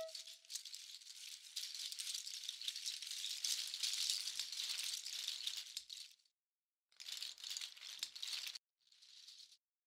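A hand rattle shaken in a steady, crisp hiss for about six seconds, then two shorter shakes, each cutting off suddenly.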